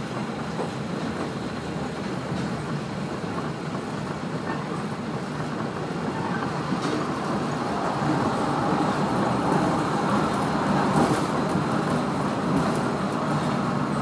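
Running noise of a Kashima Rinkai Railway 6000-series diesel railcar heard from inside the cabin: a steady mix of engine and wheels on rail, getting louder about halfway through.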